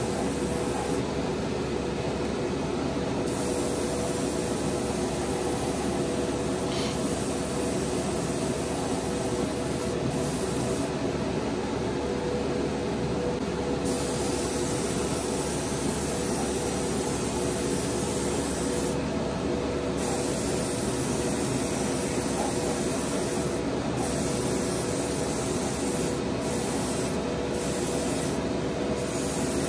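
Airbrush spraying paint: a steady hiss of air and paint over a constant motor hum. The high part of the hiss eases off briefly several times.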